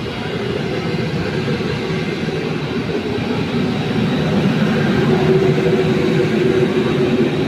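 A train running past, getting gradually louder, with a faint steady whine over its rumble.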